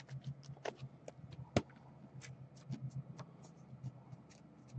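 Scattered light clicks and taps of desk-top handling, with one sharper knock about a second and a half in, over a steady low hum.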